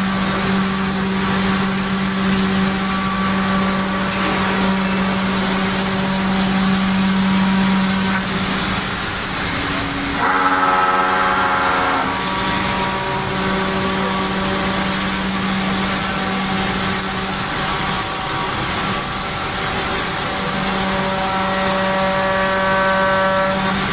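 CNC router-bit contour cutting machine running, its spindle driving a vertical router bit through a thick edge-glued wood panel: a steady machine hum and whine with cutting noise. The tone shifts briefly about ten seconds in and again near the end.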